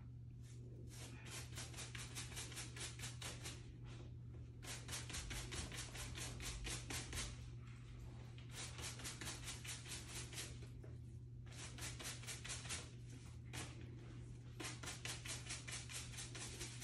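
A rag rubbed briskly back and forth over a dusty plastic-mesh PTAC air-conditioner filter: rapid scraping strokes, about five a second, in spells of a few seconds with short pauses between, over a steady low hum.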